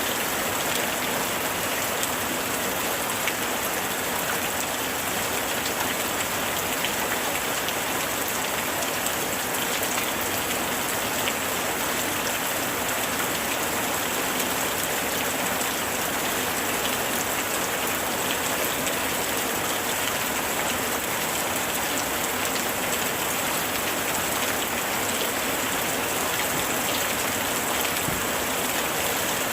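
Heavy rain falling steadily: an even hiss with a dense patter of drops that does not change.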